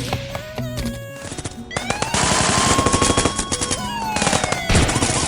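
Sound-effect bursts of rapid machine-gun fire over background music, the dense run of shots starting about two seconds in and stopping near the end.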